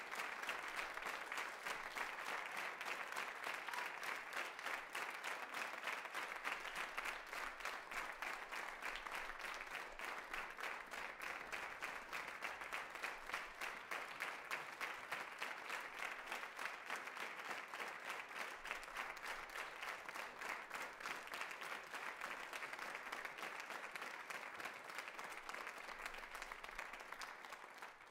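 Audience applauding, a dense, steady clapping that eases slightly and then cuts off abruptly at the very end.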